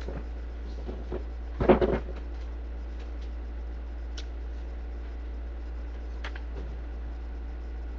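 A steady low hum, with a brief clatter of knocks about two seconds in and a few faint single clicks later.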